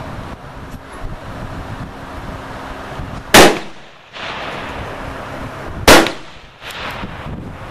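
Two loud rifle shots from scoped benchrest rifles, about two and a half seconds apart, each trailing off in a short echo.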